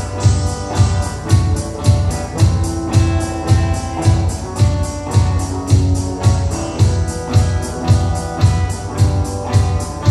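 Rock band playing an instrumental passage without vocals: a steady kick-drum beat about twice a second under sustained guitar and keyboard chords.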